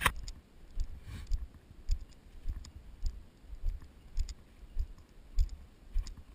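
Walking footsteps on dry grass and thin snow, a low thud with a light click on each step, about two steps a second.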